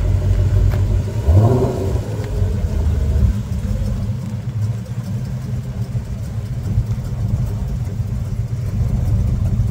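Car engine running with a low rumble, revving up briefly about a second in and then settling back to a steady run.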